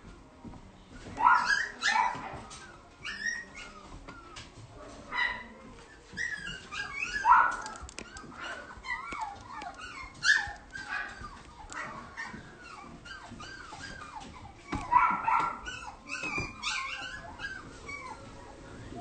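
Young poodle whining and yipping in many short, high calls, with a few louder yelps.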